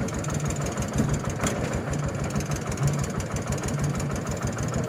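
Small engine of a Quick QH 11 mini rice harvester running steadily with an even, rapid low throb. A single brief click about a second and a half in.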